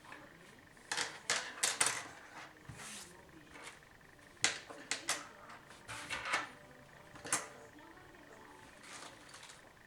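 Irregular clicks, taps and light rattles of small PC-case accessory parts being handled, coming in several short clusters.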